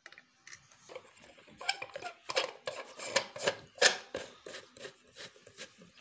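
Clinks, knocks and rubbing of ceiling-fan parts being fitted by hand, the downrod and its canopy on the fan's motor housing. The clinks come thick from about one and a half seconds in, the loudest near four seconds, then thin out to a few light taps.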